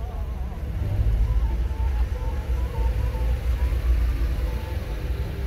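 Car being driven, heard from inside: a steady low rumble of engine and road noise that grows a little louder about a second in.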